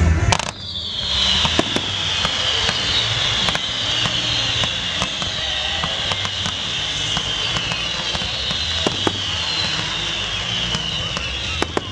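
Fireworks display: a loud boom at the start, then ground fountains hissing steadily, the hiss sinking slowly in pitch. Scattered sharp pops and crackles come from the shells throughout.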